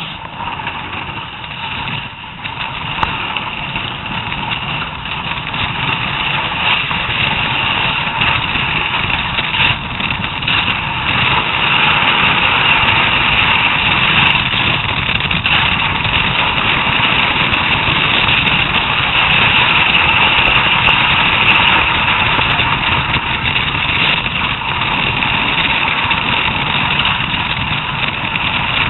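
Bobsleigh runners scraping and rumbling on the ice track, a steady roar heard from inside the sled, growing louder over the first ten seconds or so and then holding.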